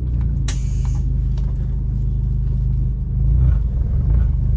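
Steady low rumble inside the cabin of a lowered VW Saveiro pickup on the move. About half a second in comes a sharp click and a short hiss of air as the air-suspension controller is pressed.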